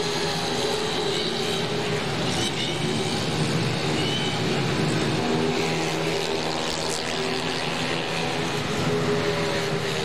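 Several 130cc racing automatic-scooter engines running together, their overlapping tones shifting in pitch as the bikes ride along the track.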